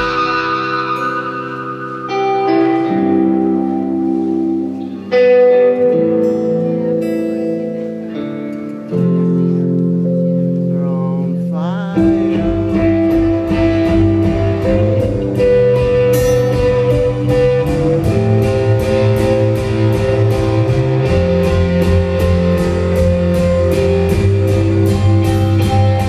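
Live rock band played through a venue PA: held electric guitar chords and notes with no drums, a swooping pitch bend, then about twelve seconds in the drums come in with a steady beat and the full band plays.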